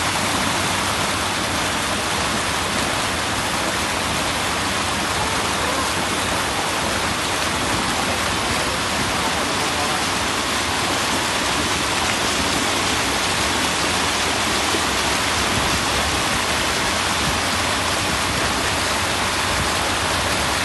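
Steady rush of water gushing at full flow from the outlet of a motor-driven inclined-shaft axial-flow water pump.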